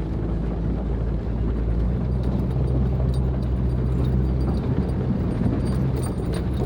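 Jeep Wrangler's six-cylinder engine running at low speed, heard from inside the cabin while crawling over a rocky trail. The engine note grows a little stronger about two seconds in, with light rattles and clicks over it.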